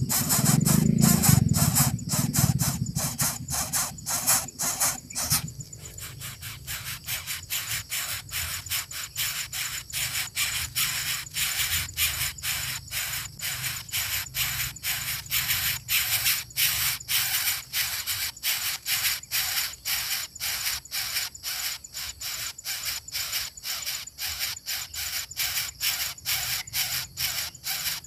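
Music fading out over the first few seconds, then a steady run of sharp clicks, about three or four a second.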